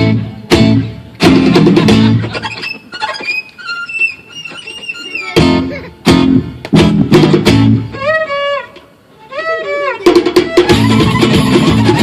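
Guitar music: sharp strummed chords broken by pauses, with a high melodic line sliding between notes, then steady strumming from about ten seconds in.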